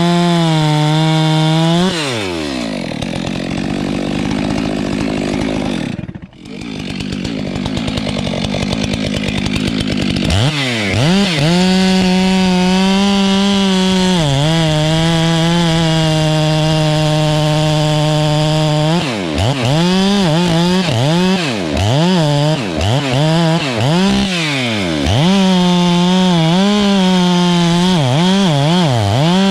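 Stihl MS 462 two-stroke chainsaw at full throttle, dropping to a low idle for several seconds about two seconds in, then revved back up and held high. Later it rises and falls in a run of quick throttle blips before running high again near the end.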